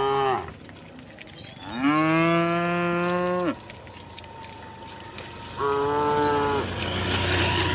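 Cows mooing: one moo trails off at the start, then a long low moo of about two seconds, and a shorter one about six seconds in.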